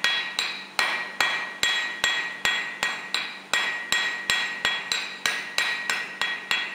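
Blacksmith's hand hammer striking a red-hot steel nail rod on an anvil in a steady rhythm, about two and a half blows a second, each blow ringing out and fading: drawing out the taper that makes the nail's point.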